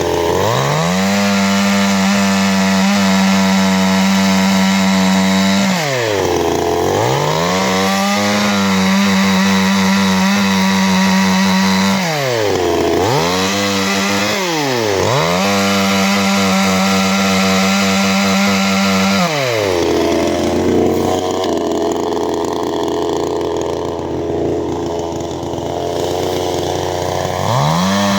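54.6 cc two-stroke CanFly chainsaw revved up and held at high speed in three long stretches, dropping back briefly between them. It then falls to a lower, uneven run for about eight seconds before revving up again at the end.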